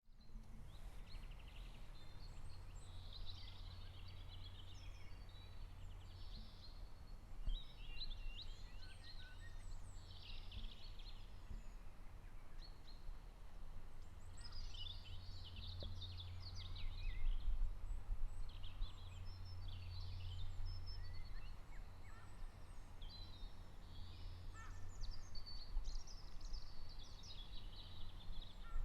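Small songbirds chirping and trilling in bouts of quick high notes, over a steady low background rumble.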